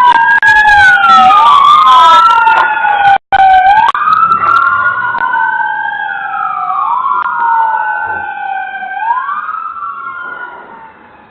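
Two or more police car sirens wailing at once, their pitches sliding slowly down and jumping back up out of step with each other. The sound is very loud and clipped at first, with a brief dropout about three seconds in, and grows steadily fainter over the second half. It is picked up by a Ring video doorbell's microphone.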